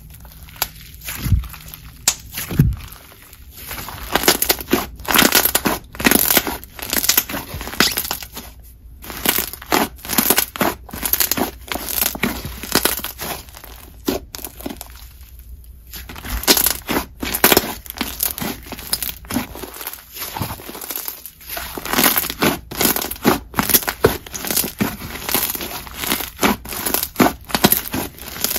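Matcha clay fizz slime (buttery clay mixed into snow fizz) being kneaded, stretched and pressed by hand, giving off dense, sizzly crackling in quick clusters, with a couple of short pauses.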